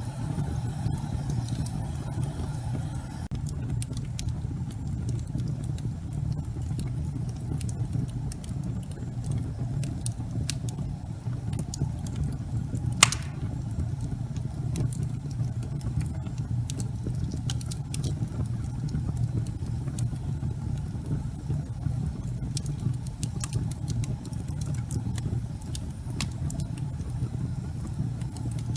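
Logs burning in a fireplace: a steady low rumble of the fire with scattered crackles, and one loud pop about halfway through.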